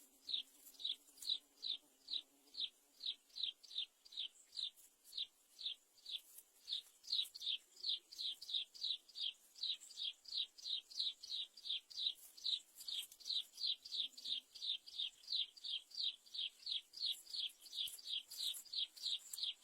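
A bird calling in a steady run of short, high chirps, each sliding downward, about three a second.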